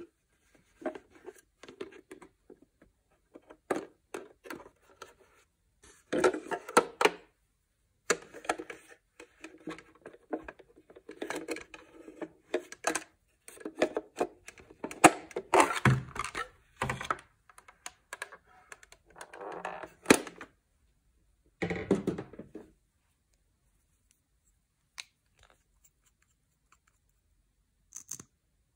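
Hard plastic toy castle being handled: its plastic parts click, knock and rattle against each other in irregular bursts, including a yellow plastic piece being pushed into a doorway.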